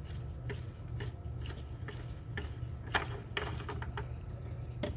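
A spin-on oil filter being unscrewed by a gloved hand: scattered light rubbing and clicking, a little louder about three seconds in, over a steady low hum.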